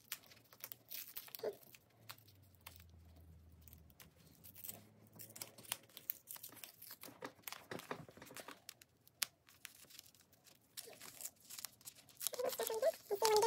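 Paper backing sheet of a heat-transfer image being slowly peeled off a cotton T-shirt, giving faint, irregular crackles and ticks as it lifts from the pressed design.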